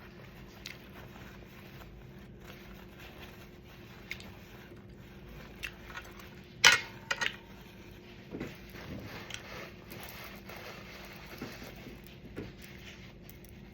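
Close-up eating sounds: chewing and wet mouth noises in small bursts, with a sharp click about seven seconds in followed by two smaller ones.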